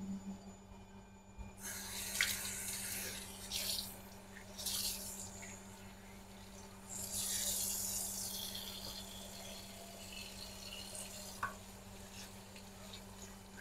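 Kitchen tap running into a stainless steel sink in on-and-off spurts, with splashing and a few light knocks as things are rinsed, over a steady low hum.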